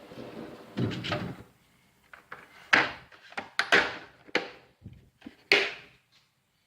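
Steel tool chest drawer sliding on its runners, then a series of sharp knocks and clanks as drawers and tools are handled.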